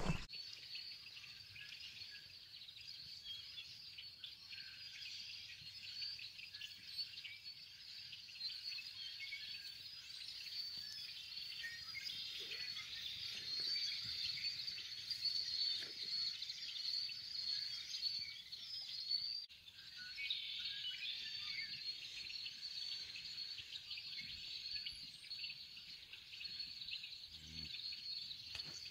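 A large flock of birds in bare treetops, many calling and singing at once in a dense, continuous chorus of chirps, with a short lull partway through.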